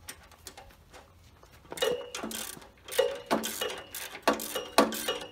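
Wrench tightening the engine's mounting bolts on the compressor's steel mounting plate: a run of sharp metallic clicks and clinks, each with a short ring, starting about two seconds in after a few faint clicks.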